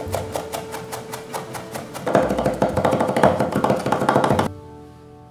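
Rapid knife chopping of parsley, lemon zest and garlic with a large cleaver on a wooden cutting board, about six chops a second. The chopping gets faster and louder about two seconds in, then stops abruptly near the end, leaving soft background music.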